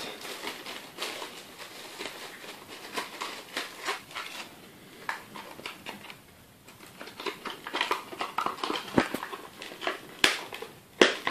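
Thermal paste packaging being handled and opened by hand: scattered small clicks and rustles, easing off for a moment in the middle, with a couple of sharper clicks near the end.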